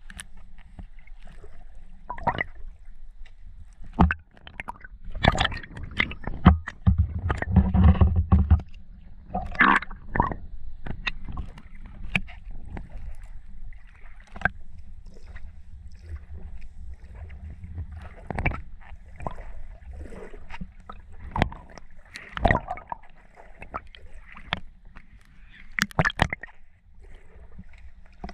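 Muffled underwater sound from a submerged camera: a steady low rumble of moving water with irregular knocks and clicks, thickest about five to nine seconds in.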